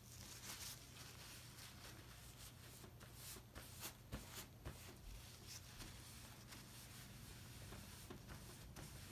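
Faint rubbing and rustling of paper towel wiped across a synthetic practice skin to clear off leftover tattoo ink and petroleum jelly, in short strokes, over a steady low hum.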